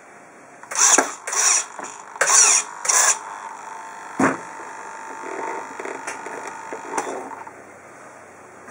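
RC servos whirring in four short bursts, working the shift and clutch-brake steering linkages on a tank model's two-speed gearbox. A single sharp clunk follows about four seconds in, then a fainter whine for a few seconds.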